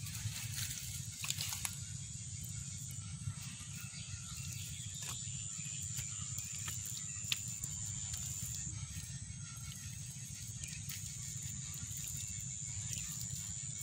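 Outdoor ambience at the muddy water's edge: a steady low rumble under a thin, high-pitched steady whine, with a few faint clicks.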